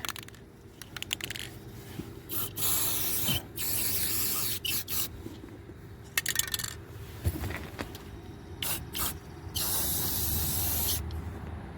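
Aerosol spray paint can spraying in a series of separate bursts. Some are brief and the longest lasts about a second and a half.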